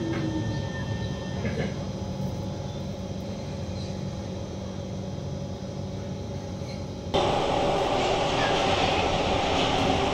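Singapore MRT train heard from inside the car: the traction motor whine falls in pitch at the start as the train slows, then a steady rumble of running. About seven seconds in the sound cuts abruptly to a louder, noisier ride inside a CT251 train.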